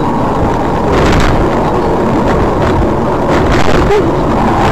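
Steady engine and road noise inside a moving car, picked up by a dashcam.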